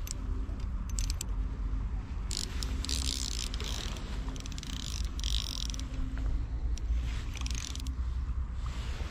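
Ultralight baitcasting reel being cranked to retrieve the lure: its gears whir in spells, with several short bursts of rapid ratchety clicking. Steady low wind rumble sits on the microphone.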